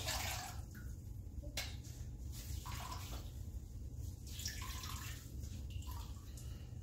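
Soaked cotton yarn being wrung out by hand over a bucket: water splashing and dripping back into the bucket in a run of short irregular splashes, over a low steady hum.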